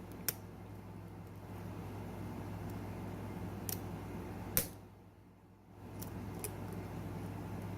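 Faint, scattered clicks of a lock pick and tension wrench working the pins of a pin-tumbler lock fitted with serrated pins, over a steady low hum.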